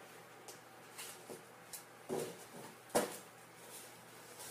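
Cardboard tissue box on a cat's head knocking and scraping on a wooden floor as the cat blunders about: a few light knocks and scuffs, the loudest about three seconds in.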